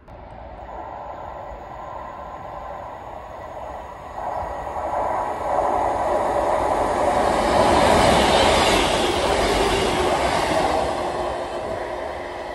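Northern Class 158 diesel multiple unit approaching and running past along the platform. Its engine and wheel noise build up, are loudest about eight seconds in as it passes, then fade as it draws away.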